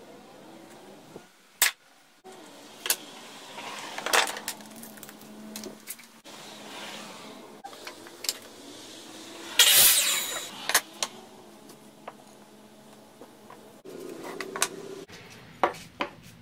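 Workshop handling sounds from a series of short clips: wooden boards and tools knocked and set down, with several sharp knocks and a loud noisy burst of about a second a little past the middle.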